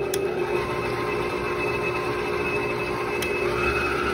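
HOWORK SM-1510 electric stand mixer running, its motor humming steadily as the wire whip beats a mixture in the stainless steel bowl. A higher whine joins the hum about three and a half seconds in.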